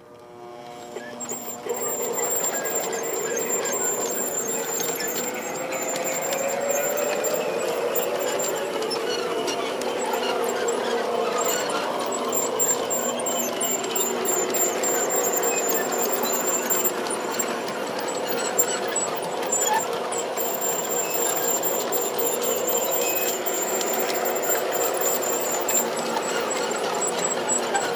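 G-scale model train running: the electric locomotive motor and gearing whine with a wavering pitch while the wheels roll over the track, a faint high whine above it. It builds up over the first two seconds, then runs on steadily.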